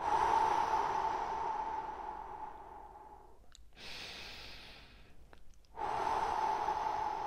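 A man taking slow, deep breaths: each quieter inhale is followed by a long, audible exhale blown out through the open mouth, which fades over about three seconds. A second exhale starts about six seconds in, just after a couple of faint mouth clicks.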